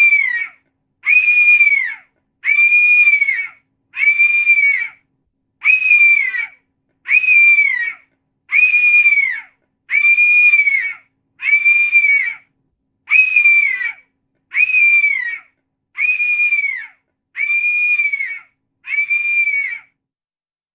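A bird screaming loudly, about fourteen harsh, high calls in a steady series, roughly one every second and a half. Each call holds its pitch and drops away at the end. The series stops shortly before the end.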